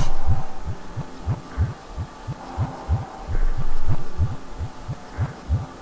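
Dark electronic backing music: a steady deep thudding beat, about four thuds a second, with faint sustained tones above it.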